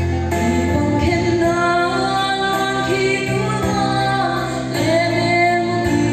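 A woman singing a slow gospel song into a handheld microphone, her voice gliding between long held notes over a sustained instrumental accompaniment whose chords change about a second in and again near five seconds.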